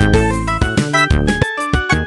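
Siemens C65 polyphonic ringtone tune playing: a busy, fast electronic melody over bass notes, with regular percussion hits.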